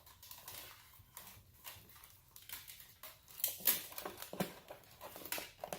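A run of light clicks and scratchy rustles as a bundle of LED light wires is handled and sorted, loudest about three and a half seconds in.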